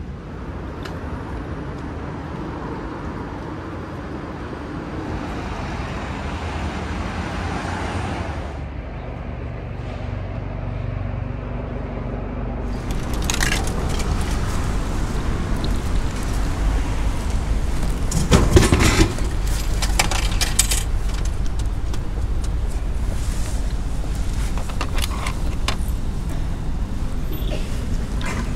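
Steady street traffic noise. Then a run of sharp clicks as coins are fed into a drink vending machine's coin slot, and a louder thud a few seconds later as a bottle drops into the delivery tray.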